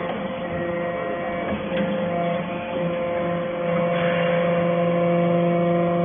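Hydraulic metal-chip briquetting press running: a steady hum from its motor and pump, with a few light clicks.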